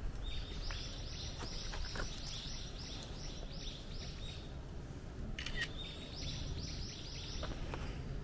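A bird calling outdoors: a run of short, high chirps, each falling in pitch, repeated two to three times a second, then after a short pause a second, shorter run. A steady low outdoor rumble sits underneath.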